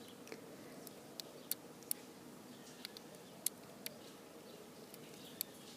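Faint metallic clicks of a lock pick working the pins inside a small Brady (Abus-made) lockout padlock as it is picked in hand. There are about eight sharp clicks, spaced irregularly.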